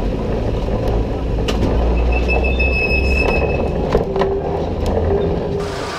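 Vintage 1911 Hurst Nelson tram running on its rails with a steady low rumble, its wheels giving a thin high squeal for about a second midway as it takes a street corner, with a few sharp clicks from the wheels and running gear.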